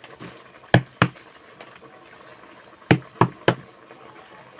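Five sharp knocks, as of something hard struck on wood or a pot: two close together, then three more about two seconds later.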